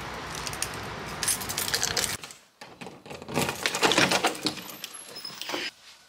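A bunch of keys on a key ring jangling and clinking as a key is worked in a door lock and a door knob is turned. The clinks are loudest between about three and four and a half seconds in. Before them there is a faint steady hiss.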